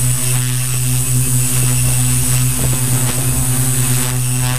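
Electric multirotor's motors and 15x5.5 propellers running steadily, heard from a camera on the craft: an even, pitched hum with a faint high whine above it.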